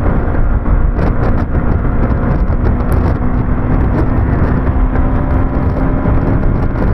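Motorcycle engine pulling steadily at highway speed under heavy wind rush on the microphone, its note rising slightly as the bike gathers speed toward about 100 km/h.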